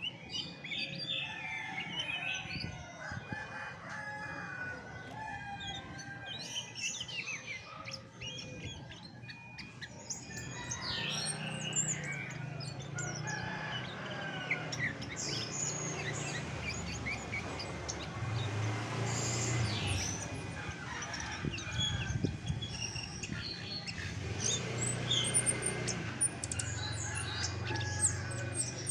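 Chestnut-backed thrush singing, a run of quick, varied whistled and chirping phrases. A low hum joins about a third of the way in.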